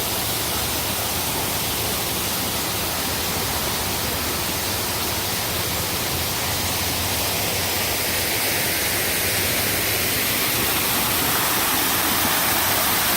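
Waterfall pouring onto rocks: a loud, steady rush of falling water.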